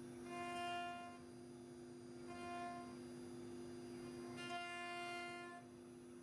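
Background music: three held, violin-like bowed notes over a steady low drone.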